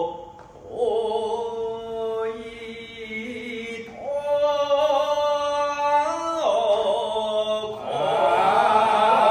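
Men chanting an iwai kiyari, the traditional Edo firemen's and builders' celebratory work song, unaccompanied: long drawn-out notes that slide between pitches. Near the end it grows louder and fuller as the group sings together.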